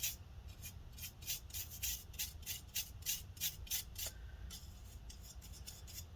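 A brush sweeping dust off a laptop cooling fan in quick, scratchy strokes, about four a second. The strokes stop about four and a half seconds in, and fainter scratching follows.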